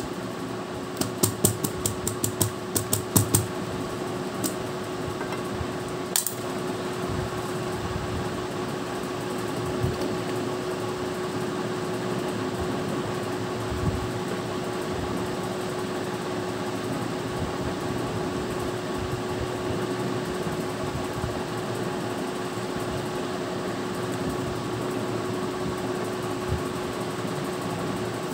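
Steady fan hum, with a quick run of about a dozen sharp clicks a second or so in, as fingers tap the metal lid of a candy tin, and one more click a few seconds later.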